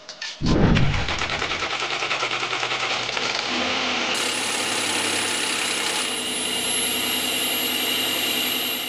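Porsche Cayenne's freshly overhauled EA837 V6 engine starting with a loud low burst about half a second in, then idling steadily.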